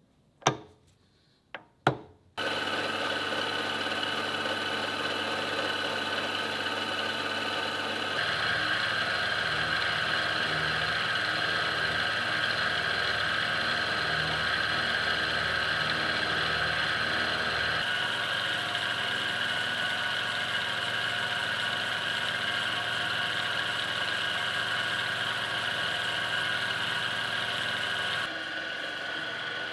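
A few sharp knocks, then a benchtop milling machine running steadily, its end mill cutting a flat along a length of steel rebar. The tone of the cut shifts abruptly a few times.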